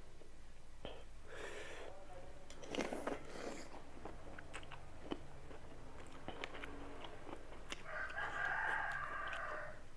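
A rooster crowing once in the background, a single call of nearly two seconds starting about eight seconds in. Before it, crunchy chewing and biting of raw mango and jicama.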